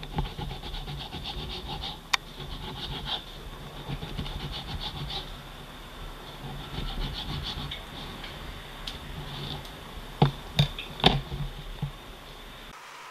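A kitchen knife saws back and forth through raw bacon on a plastic cutting board, in quick rubbing strokes. A few sharp knocks come near the end.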